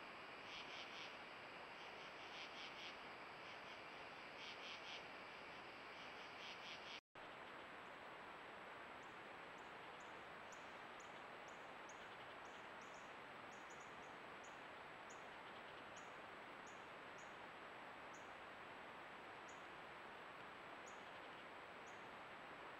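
Faint outdoor hiss from a trail camera's microphone, with insects chirping in rhythmic pulses for the first seven seconds. The sound breaks off for an instant, then only scattered short, high chirps remain over the hiss.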